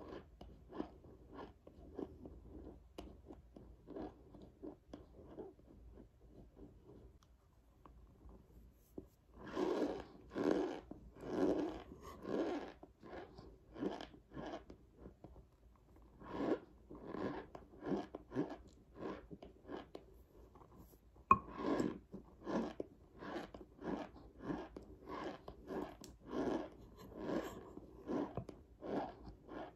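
A person chewing mouthfuls of dry cornstarch: a steady run of crunching chews about one a second, soft at first and louder from about ten seconds in. A single sharp click comes a little past the middle.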